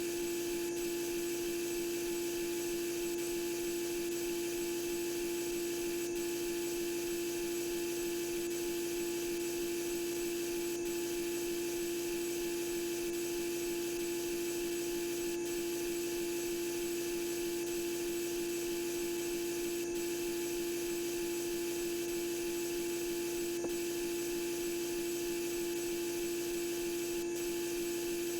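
CNC lathe running a roughing cycle, giving a steady, unchanging hum with one strong tone. A faint click comes every four or five seconds.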